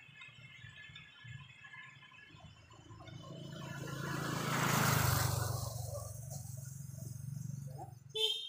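A vehicle passing by: a rush of noise that builds, peaks about five seconds in and fades away, over a steady low hum.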